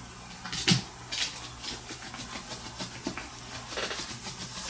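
Scattered small clicks and rustles over a steady low hum, with one sharper click about a second in.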